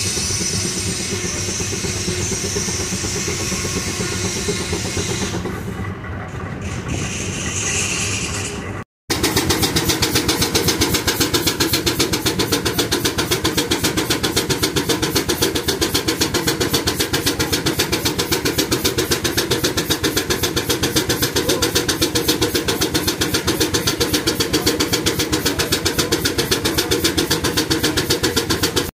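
Case steam traction engines belted together, with a steady hiss of steam over a low mechanical sound. After a cut, a steam traction engine working on the belt, its exhaust beating in a fast, even rhythm of several chuffs a second.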